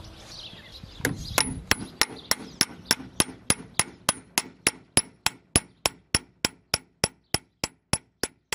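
Hammer peening a steel scythe blade on a small peening anvil set in a wooden stump: steady metallic taps, about three a second, starting about a second in, each with a short high ring. This is the first peening pass, struck at an angle to draw out the metal of the edge.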